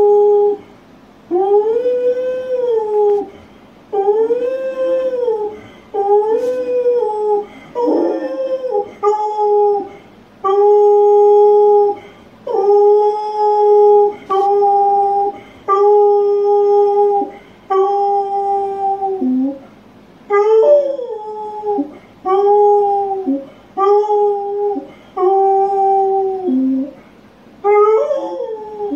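Hound dog howling over and over, one long howl about every two seconds. The first few howls rise and fall in pitch, and the later ones hold one steady note and drop away at the end.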